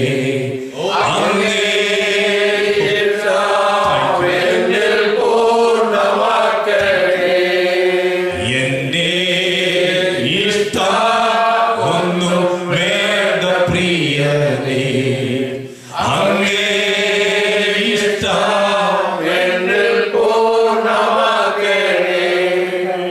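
A voice singing a slow, chant-like devotional song with long held notes that glide between pitches, with short breath breaks about a second in and about sixteen seconds in.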